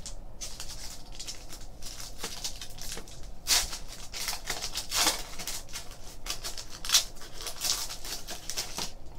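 Foil trading-card pack wrapper crinkling and being torn open by hand: a dense run of sharp crackles, busiest from about three and a half seconds in.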